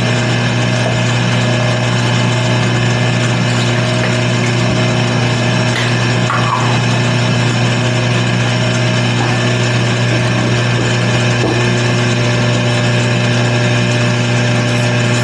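Wood lathe running steadily with a constant motor hum while clear finish is applied to the turning top.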